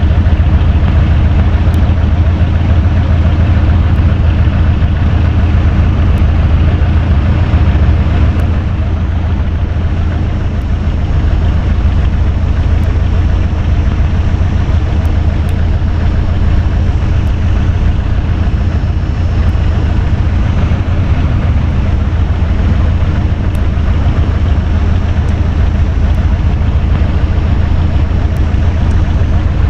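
Electric fan running steadily: a loud low motor hum under the whoosh of the blades, dipping slightly in level about eight seconds in.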